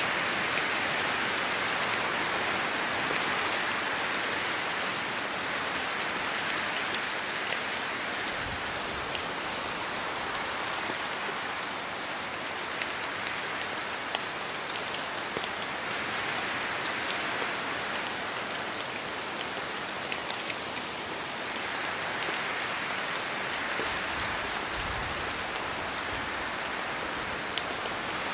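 Steady rain falling in a forest, a dense hiss with many small drop ticks, swelling and easing slowly as the wind gusts.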